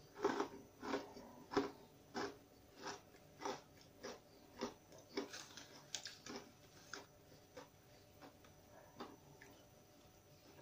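A mouthful of thick, crunchy pitta chips being chewed, in a regular run of crunches roughly every half second. The crunches are loudest at first and grow fainter as the mouthful is chewed down, dying away about nine seconds in.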